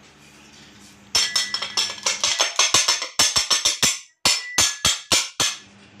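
Rapid, sharp metallic knocks, about five a second with a slight ring, from the ceiling fan's steel shaft and housing being worked to free a shaft seized in its grease-blackened bottom bearing. The knocking starts about a second in and breaks off briefly near the four-second mark.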